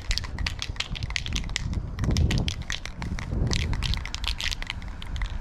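Aerosol spray paint can being shaken, its mixing ball rattling rapidly in bursts, with some wind rumble on the microphone.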